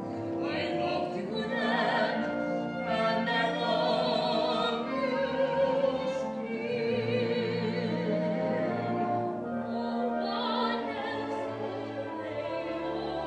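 A woman singing a slow, sustained melody in a trained, operatic style with wide vibrato, over orchestral accompaniment.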